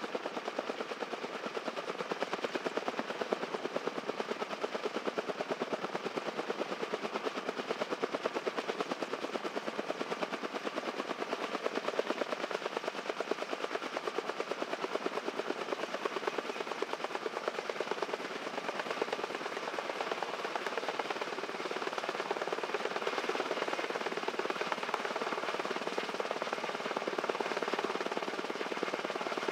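Kaman K-MAX intermeshing-rotor helicopter running, its rotor blades giving a fast, even, steady beat of blade slap.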